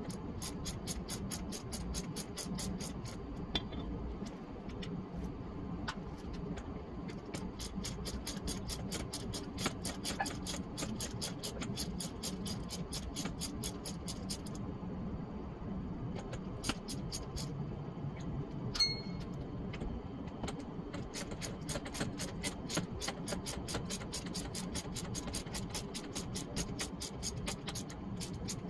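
Ratchet wrench clicking in quick, even runs with short pauses, as the bolts are backed out of the RV ladder's wall brackets. A steady low hum lies underneath.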